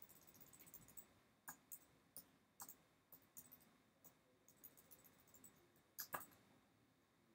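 Faint, irregular clicks of a computer mouse, with a quick run of clicks in the first second and a louder double click about six seconds in.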